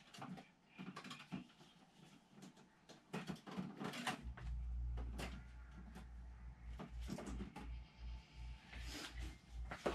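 Light knocks and rattles of paint supplies being handled and picked up. A low hum comes in about four seconds in.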